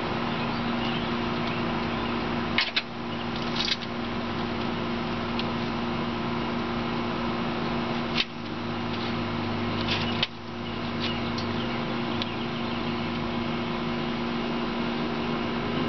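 Steady mechanical hum, with a few short sharp clicks about three, four, eight and ten seconds in.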